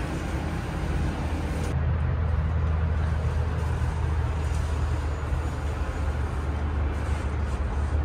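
Aerial cable car (ropeway) cabin running: a steady low hum and rumble. About two seconds in, the higher hiss drops away suddenly.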